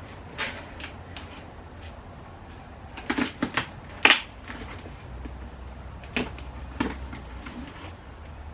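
Scattered knocks, taps and rustles of a cardboard box and its packing being opened and handled, with a short cluster about three seconds in and the loudest knock about a second later.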